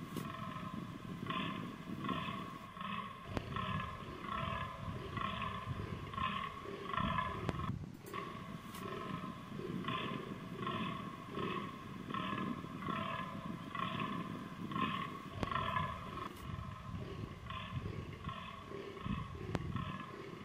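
Fallow deer buck groaning in the rut: a long series of short, deep groans repeated about two to three times a second.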